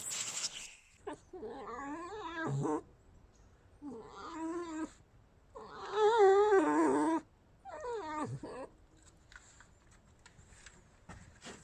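Pet red fox whining in four wavering, high squeaky calls with short pauses between them, the third the loudest and longest: a vocal complaint at the person in her space.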